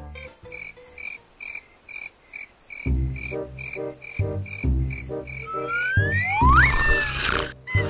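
Night-time cricket chirping: a steady run of evenly spaced high chirps. About three seconds in, a low regular thumping joins, and near the end come a few rising whistle-like glides.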